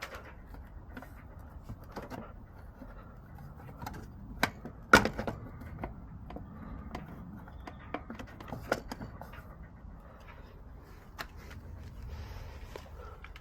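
Scattered clicks and knocks of hands and tools at work, the loudest a sharp knock about five seconds in, over a low, even background noise.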